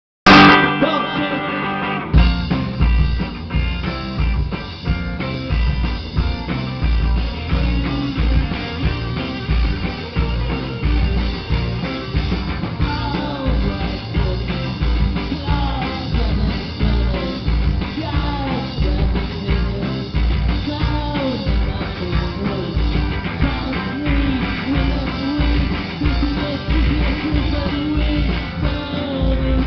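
Live rock band playing electric guitars and drum kit. A loud burst dies away over the first two seconds, then the full band comes in with a steady kick-drum beat.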